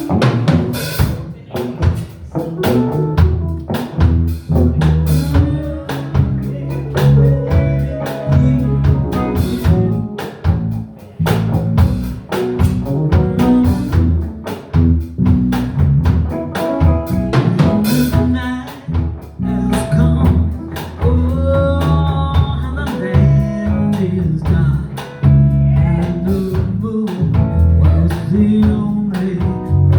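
Live band playing a blues-style number: drum kit keeping a steady beat, bass and electric guitar, with a singer's voice over the top.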